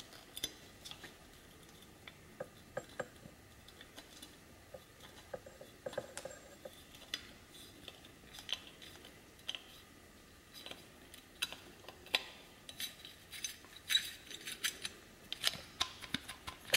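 Screwdriver working the clamp screw on an angle grinder's wheel guard: scattered small metallic clicks and scrapes of tool on metal, coming thicker near the end as the guard is handled.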